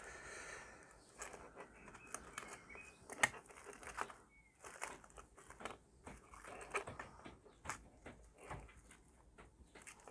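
Faint crinkling of cling film and small scattered clicks as the film is pressed and smoothed into a plastic model coal wagon by hand.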